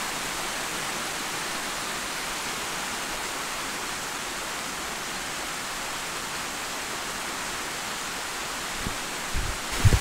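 Water from a small waterfall rushing and splashing steadily down a rocky granite cascade, a constant even hiss. A couple of dull low bumps come near the end.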